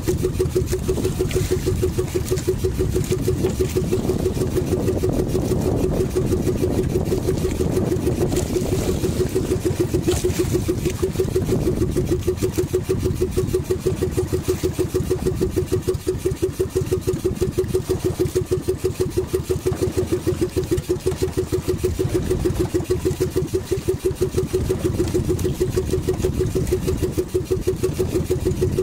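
Outrigger fishing boat's engine running steadily under way, with a rapid, even exhaust beat.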